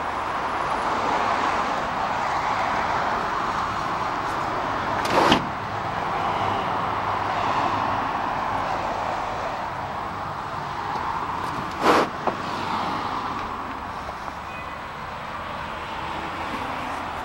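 Passing road traffic: a steady hiss of cars that swells and fades as vehicles go by. Two sharp knocks stand out, about five seconds in and again about seven seconds later.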